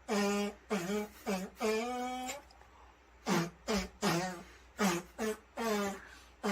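A voice making short, wordless pitched calls, about eleven of them in two quick runs with a pause between, each run ending in a longer call that rises slightly in pitch.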